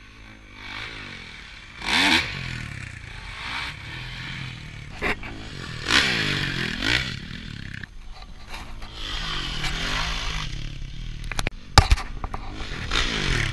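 Dirt bike engines revving up and dropping off in repeated swells as the bikes fly over jumps and past the camera, with rushing wind noise on the microphone. A few sharp knocks come near the end.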